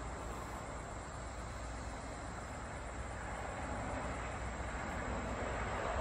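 Steady rumble of distant road traffic, growing a little louder near the end.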